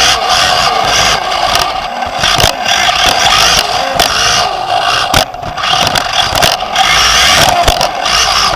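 Onboard sound of a Team Associated B5M 2WD electric RC buggy racing on a dirt track: the Nosram Comet HD motor and drivetrain whine, rising and falling in pitch with the throttle, over a steady rush of tyres and loose dirt. Sharp knocks and clacks come again and again as the chassis takes the bumps.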